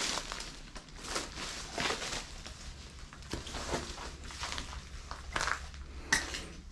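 Footsteps walking at an even pace, a short step sound roughly once a second.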